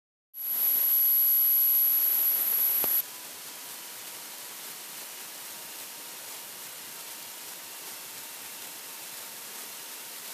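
Steady electronic hiss like static. It is loud, with a thin very high whine, for the first three seconds, then drops suddenly to a quieter steady hiss.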